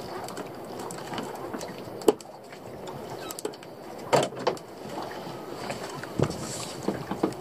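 Scattered knocks and clatter of fishing tackle being handled aboard a small open boat, over a steady background wash; the loudest knocks come about two seconds in, a cluster around four seconds, and another around six seconds.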